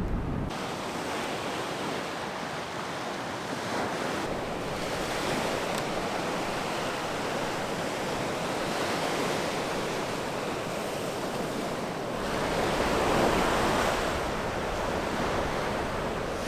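Sea waves breaking hard on the shore in strong wind, with wind buffeting the microphone. The surf swells louder about four seconds in and again near the end.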